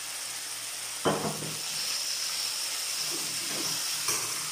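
Frying pan of chicken simmering in soy sauce and marinade, giving a steady sizzle and hiss. A sharp knock sounds about a second in, and a smaller one near the end.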